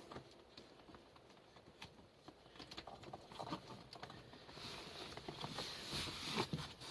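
Light rustling and a scatter of small clicks and taps as cables are handled and tucked behind the dash, busier in the second half.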